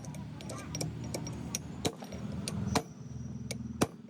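A series of sharp taps and knocks, about ten at irregular spacing, the loudest two in the second half, over a steady low hum.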